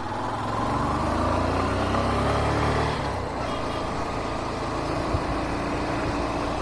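Karizma's 223 cc single-cylinder four-stroke engine pulling the motorcycle along under throttle. Its note climbs for about three seconds, drops, then runs on steadily as the bike cruises.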